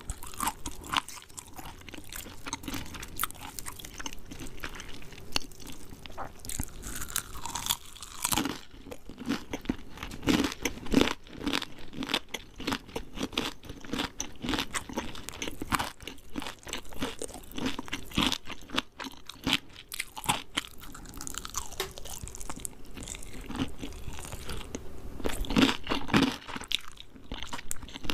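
Biting and chewing crispy KFC fried chicken: irregular, rapid crunches of the breaded crust with chewing between them.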